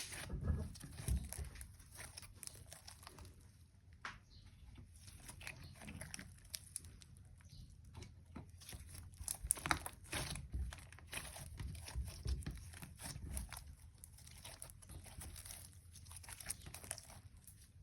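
Hands playing with freshly made glue-and-borax slime: soft, irregular sticky clicks and crackles as it is stretched and pressed, a little busier about halfway through.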